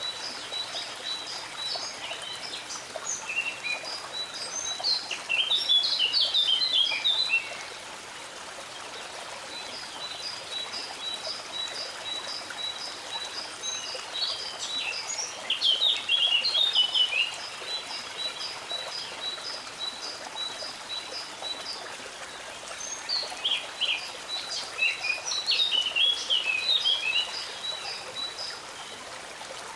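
Stream water running steadily with songbirds over it: a long run of quick, high, evenly spaced chips and three louder bursts of warbling song, about ten seconds apart.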